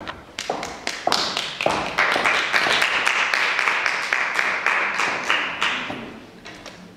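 Small audience clapping. It builds within the first second or two, stays dense for a few seconds, then thins out and dies away near the end.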